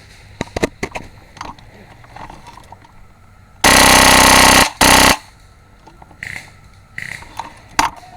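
G&G airsoft rifle running on HPA firing two very loud full-auto bursts, a buzzing rattle of about a second and then a short one just after, with scattered clicks and knocks around them.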